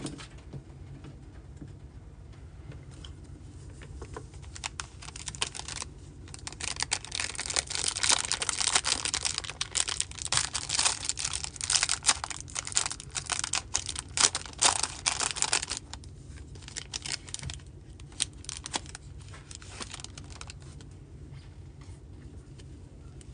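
Clear plastic wrapper of a sealed Topps Tier One card pack crinkling and crackling as it is handled and opened and the cards are pulled out. The crackling starts about four seconds in, is loudest between about eight and sixteen seconds, then thins out.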